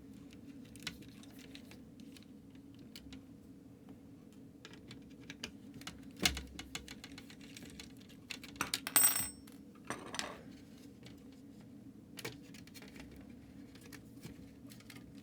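Small clicks and taps of screws and a screwdriver working the plastic case of a membrane keyboard. About nine seconds in there is a louder clatter of small metal parts with a brief high ring, and a smaller one a second later.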